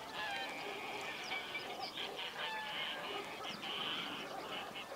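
Birds calling: many short, overlapping calls one after another without a break.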